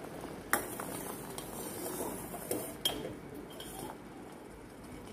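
Steel ladle clinking several times against the side of a steel pot as it stirs and scoops the boiling coconut-water, sugar and agar-agar mixture, over the steady bubbling of the liquid. The two sharpest clinks fall about half a second in and near three seconds in.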